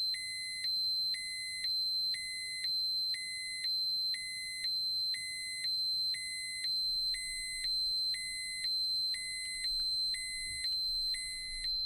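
Radiation dosimeter alarm: a steady high electronic tone with a lower beep pulsing on and off about once a second, warning of radiation above its set threshold.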